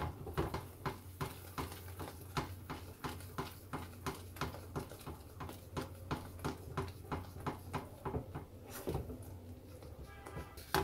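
Silicone whisk being worked briskly through thick white cheese sauce in a frying pan, making quick repeated strokes about three or four a second.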